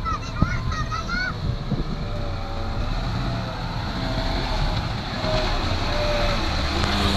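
Heavy earthmoving machinery running, a steady low engine rumble mixed with wind noise on the microphone. A few short honking calls are heard in the first second or so.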